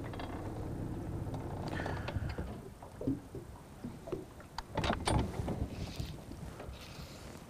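A low steady mechanical hum that fades out about two and a half seconds in, then a few scattered knocks and taps in the boat, the loudest cluster about five seconds in.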